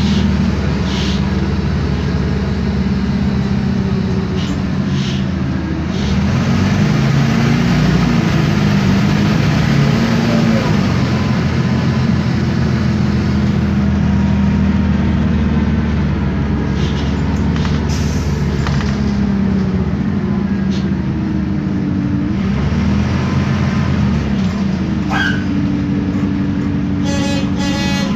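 Isobus City 1200 city bus under way: its MAN D0836 LOH straight-six diesel and ZF Ecomat six-speed automatic gearbox running, the engine note rising and falling several times as the bus accelerates and the gearbox shifts, with a few short clicks.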